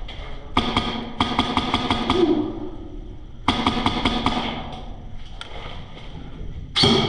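Airsoft rifle firing in rapid bursts: two strings of quick sharp shots at about seven or eight a second, a few single shots between, and one louder crack near the end.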